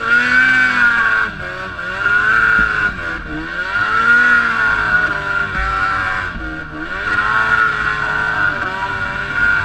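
BRP E-TEC 800 two-stroke engine running with a misfire, its speed dipping and picking back up several times in an uneven, surging note.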